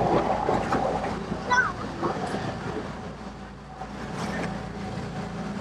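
Harbour ferry's engine running as it comes in toward the wharf, a steady hum under background voices, with a short high chirp about a second and a half in.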